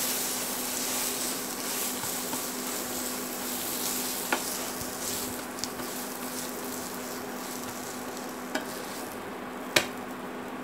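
Pita bread sizzling as it fries on a hot nonstick pan, with a plastic slotted spatula pressing and moving it and four sharp clicks of the spatula against the pan, the loudest near the end. The sizzle thins out toward the end over a steady low hum.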